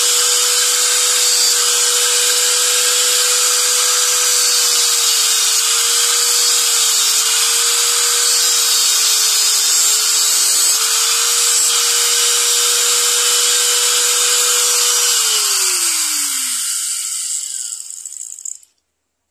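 Hand-held angle grinder running steadily with a whine while its abrasive disc cuts into a teak wooden lure blank, trimming it to length. It is switched off about 15 seconds in, and the whine drops in pitch as the disc spins down.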